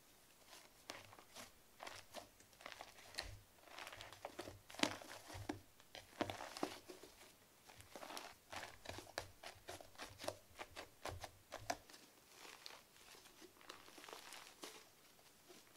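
Fluffy slime made from glue and shaving foam being kneaded and stretched by hand: faint, irregular sticky crackling and squishing.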